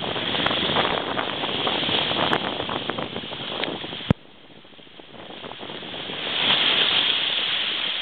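Ocean surf washing and breaking in the shallows. A sharp click about four seconds in is followed by a sudden drop to a low hush, then the wash swells up again as another wave breaks.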